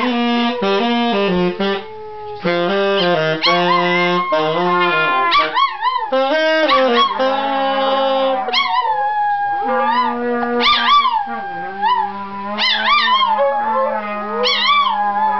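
A saxophone plays a tune of held notes that step up and down, while a long-haired Chihuahua howls along in wavering howls that rise and fall in pitch, with a Beagle also howling further back.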